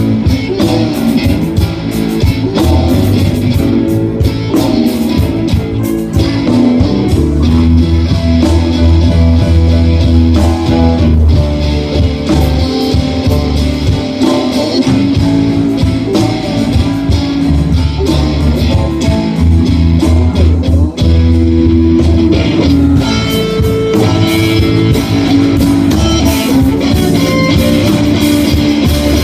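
Live blues band playing an instrumental passage: electric guitars over bass and drums, loud and steady throughout.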